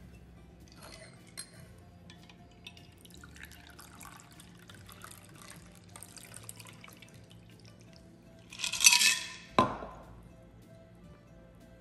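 Cocktail strained from a stainless steel shaker into a coupe glass: a thin pouring trickle of liquid, then a louder noisy burst about three-quarters of the way in and a single sharp knock just after it.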